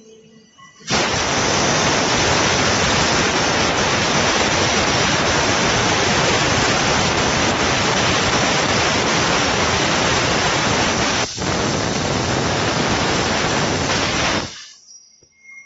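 Fiber laser cutting machine cutting stainless steel sheet: a loud, even hiss, typical of high-pressure assist gas blowing through the cutting head, that starts abruptly about a second in. It dips for an instant about three-quarters through and cuts off shortly before the end.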